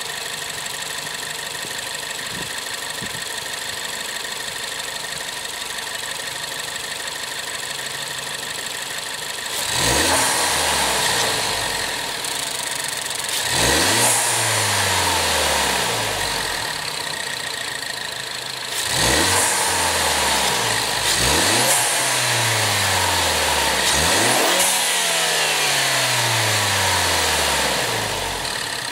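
2017 Ford Focus ST's turbocharged 2.0-litre EcoBoost four-cylinder, with stock intake and exhaust, idling steadily for about ten seconds. It is then revved sharply five times, each rev falling back slowly toward idle.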